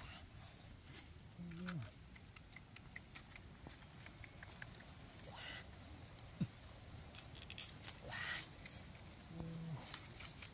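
Faint rustling and crackling of dragon fruit cactus stems, flowers and fruit being gripped and pulled by hand, with scattered small clicks and a sharper snap near the middle. Two brief low hums, about a second and a half in and near the end.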